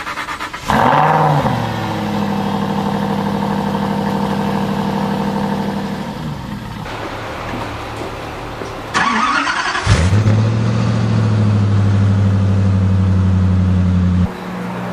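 Aston Martin Vantage engine catching after the starter with a flare about a second in, then settling to a steady idle. Later a Koenigsegg V8 is cranked and fires up about ten seconds in, with a flare into a loud, steady idle that cuts off near the end.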